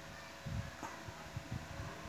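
Faint handling noise: soft low knocks and rustles as hands work the enamelled copper leads of a motor stator, over a faint steady hum.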